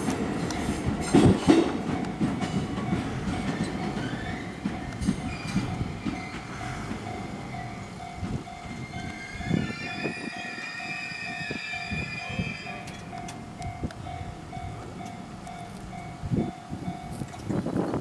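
E257 series electric train passing over a level crossing, its wheels clacking loudly over the rail joints at first and then growing quieter. Throughout, the crossing's warning bell rings in a steady repeating pattern, stopping just before the end. A high squeal runs for a few seconds in the middle.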